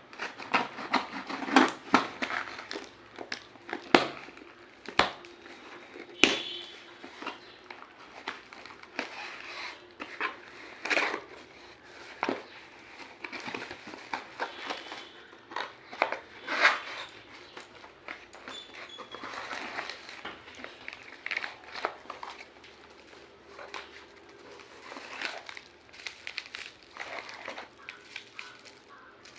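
Packaging being handled and opened: irregular crinkling of plastic and paper, with scattered sharp clicks and taps.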